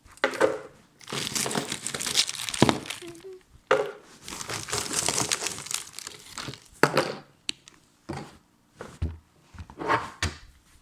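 Plastic packaging crinkling and rustling in irregular bursts, with a few sharp clicks and knocks, as strawberries are handled.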